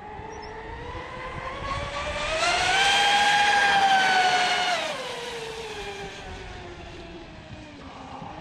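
Oxidean Marine Animal 2 RC catamaran making a fast close pass: its electric motor whine rises in pitch and grows louder for about two and a half seconds, holds at its loudest for a couple of seconds, then drops in pitch and fades as the boat runs away.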